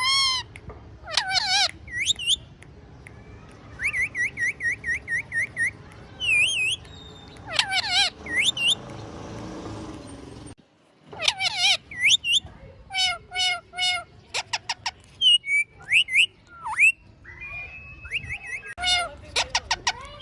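Pet parrot calling: a string of short, wavering whistled notes and squawky calls, with a quick run of about eight even chirps a few seconds in. A short hiss near the middle ends in a sudden break before the calls start again.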